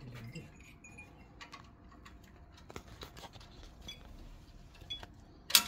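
Scattered light clicks and taps of copper pipework and brass compression fittings being handled, with one sharp, louder click near the end.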